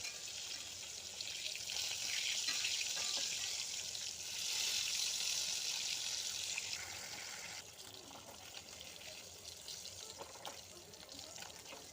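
Tilapia fish frying in hot oil: a steady sizzling hiss that drops noticeably quieter about seven and a half seconds in.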